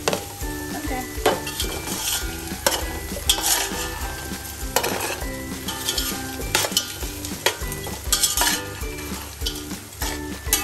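A metal spatula stirs and scrapes diced potatoes, carrots and beans around a hot, oiled metal pan. Irregular scrapes and knocks of metal on metal sound over light sizzling as the vegetables fry.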